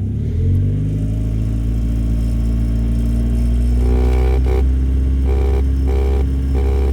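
1991 Mazda MX-5's four-cylinder engine revved up with the throttle and held at raised revs. From about four seconds in, a buzzing rattle pulses on and off about one and a half times a second: the upper coolant line under the dashboard vibrating against the line beside it.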